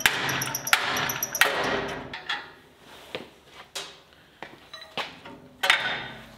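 Hammer blows on the end of a Jet 14-inch band saw's lower wheel shaft, driving the shaft out of its worn bearings: three loud metal strikes with a ringing tail in the first second and a half, then lighter knocks and clinks and one more sharp hit near the end as the shaft works loose.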